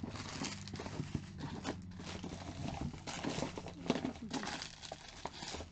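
Plastic bags and packets rustling and crinkling, with light irregular knocks, as items are handled and searched through.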